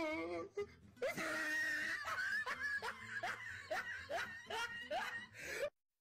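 A person giggling in a quick run of short, high-pitched, rising 'ha' sounds, about two or three a second. The sound cuts off suddenly near the end.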